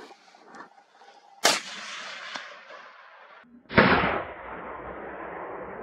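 Two gunshots from a hunting gun about two and a half seconds apart, the second louder. Each is followed by a long rolling echo that dies away slowly.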